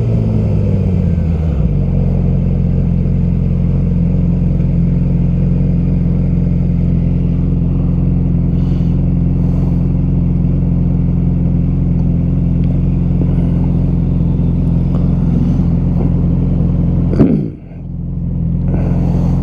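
Yamaha R6 inline-four engine dropping in pitch and settling into a steady low idle. About 17 seconds in it revs up sharply, dips briefly, then runs steadily again.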